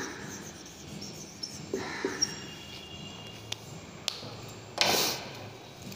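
Whiteboard marker strokes and small clicks and taps, with a faint high squeak about two seconds in, and a short rushing noise about five seconds in that is the loudest sound.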